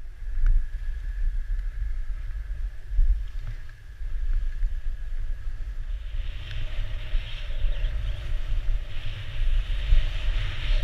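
Wind buffeting a helmet-mounted action camera's microphone while skiing fast down a groomed run: a gusty low rumble. From about six seconds in, the hiss of skis carving across the snow grows louder.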